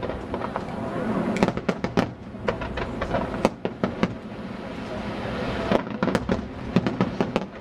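Aerial firework shells bursting in rapid, irregular succession: many sharp bangs and crackles, some in quick clusters, over a low rumble.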